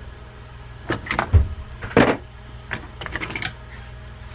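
A run of irregular clicks and knocks from a screwdriver and small steel screws being handled on a wooden workbench, with one low thump about a second and a half in. A steady low hum runs underneath.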